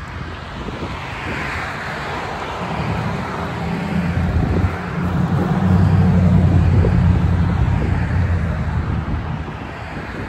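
Road traffic passing: a motor vehicle's low engine hum swells over the rush of tyres, is loudest in the middle, and fades near the end.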